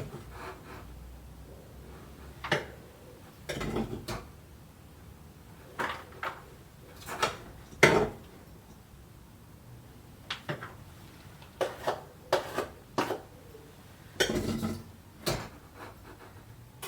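Kitchen utensils and pots clattering: irregular sharp knocks and short scrapes of a spoon against a pan and dishes, a dozen or so strikes spread out with pauses between.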